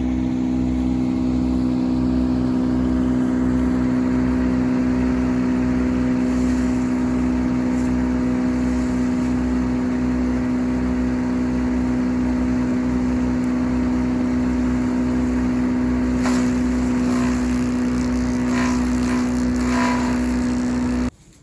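Ford 8N tractor's four-cylinder flathead engine running at a steady speed with a constant hum, warmed up to drive a wood chipper. It cuts off suddenly near the end.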